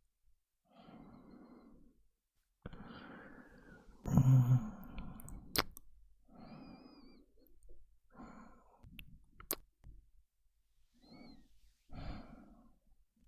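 A man's slow, close-up breathing, one soft breath after another, with a louder voiced sigh about four seconds in. Two short sharp mouth clicks fall between the breaths.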